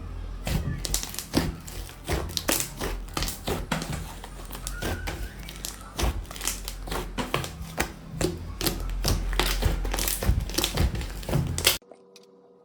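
Slime being worked by hand, giving rapid, irregular clicks and pops over a low hum, which cut off abruptly near the end.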